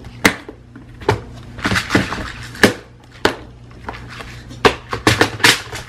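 Clear plastic bead organizer cases filled with alphabet cube beads being pulled off a stack and handled: a series of sharp plastic clacks and knocks, with a short rattle about two seconds in.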